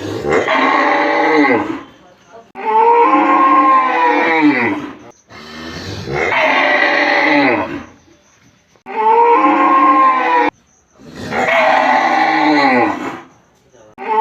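A cow mooing repeatedly: five long moos about two seconds each, every one rising and then falling in pitch, with short pauses between them.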